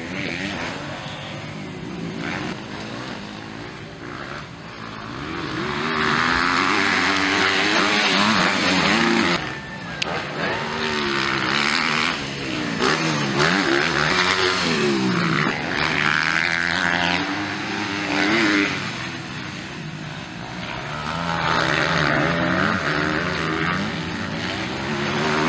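250cc MX2 motocross bikes racing on a dirt track, their engines revving up and dropping back over and over as the riders shift and roll off for corners. The sound gets louder as bikes pass close, about a quarter of the way in, around the middle and again near the end.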